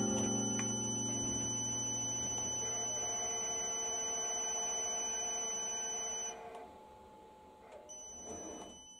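A steady high-pitched electronic buzzer tone over the last notes of guitar music dying away. The tone cuts off about six seconds in and sounds again briefly near the end.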